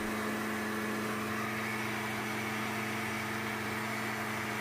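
Countertop blender motor running steadily at one speed, puréeing roasted green chiles, onion, jalapeño and garlic with a little water into a thick salsa. The hum holds an even pitch and level throughout.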